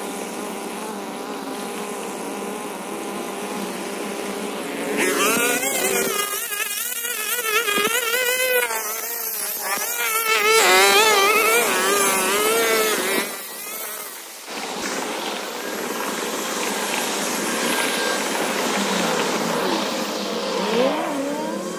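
Small two-stroke gas string trimmer (25 cc) running: steady at first, then its pitch wavers up and down from about five seconds in as the line cuts into thick, tall weeds. It drops briefly around the middle, then runs steadily again with a few rises and falls in pitch near the end.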